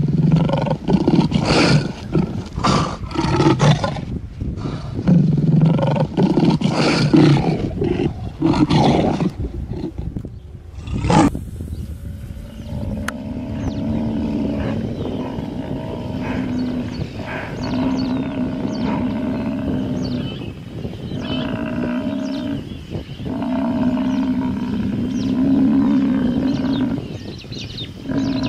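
Lions growling and snarling, loud and in repeated bursts for about the first eleven seconds. After a cut, a steadier, lower-level growling with short breaks continues.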